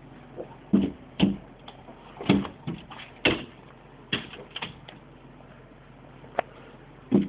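A young boxer dog romping, with about a dozen irregular knocks and thumps as she bumps and scrambles about. The knocks come thick and loud over the first few seconds, then sparser.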